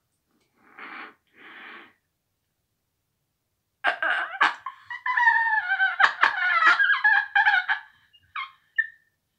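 Two soft breathy puffs, then a high, wavering whistle-like tone blown at the mouth for about four seconds, broken by sharp clicks.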